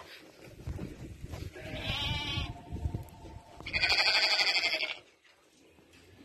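Goats bleating: two quavering bleats, a shorter one about a second and a half in and a louder, longer one about four seconds in.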